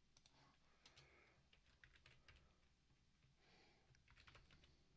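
Very faint computer keyboard typing: scattered, irregular keystrokes.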